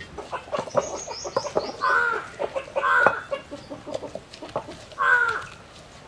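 A bird giving three loud harsh calls, about two, three and five seconds in. Light knocks and clicks sound during the first three seconds, with a short run of high chirps near one second.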